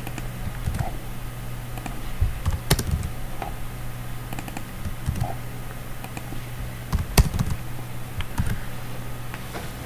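Typing on a computer keyboard: scattered, irregular keystrokes with short pauses, over a steady low hum.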